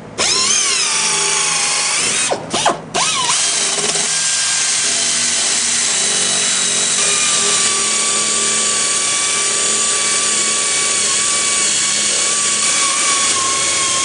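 Hand-held high-speed rotary grinder running with a steady high-pitched whine as it cuts into the rubber of a large off-the-road tire, preparing the damaged area for vulcanizing. Its pitch sags and picks up again briefly near the start and twice around two to three seconds in, as the tool is eased off and back on, then it runs steady.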